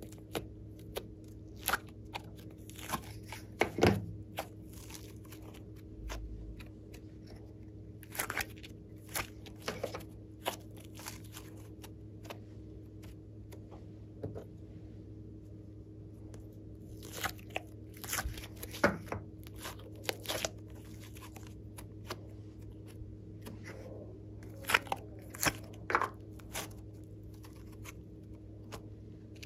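Slime squeezed, pulled out of tubs and stretched by hand: scattered crunchy, sticky popping clicks come in clusters with quiet gaps between. A faint steady hum lies underneath.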